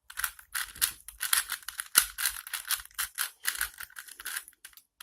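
Plastic 2x2x2 Rubik's cube being twisted quickly, its layers clicking and rattling in a rapid, irregular stream of turns.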